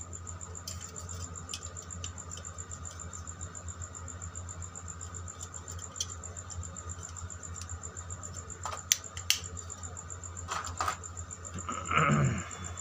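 Sharp plastic clicks as white switch and socket modules are handled and pressed into a plastic switchboard plate: a few scattered clicks, then a louder knock and rattle near the end, over a steady low hum.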